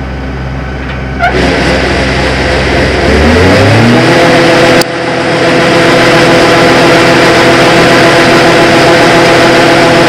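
Combine harvester running close up at its grain-tank unloading drive. About three seconds in the engine throttles up, its pitch rising to a steady high speed. A sharp click near five seconds in is followed by a loud, steady mechanical run.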